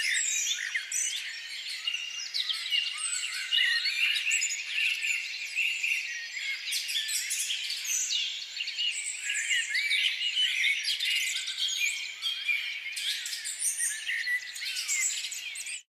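Many small birds chirping and calling at once, a dense chorus of short overlapping whistles and tweets that cuts off suddenly at the very end.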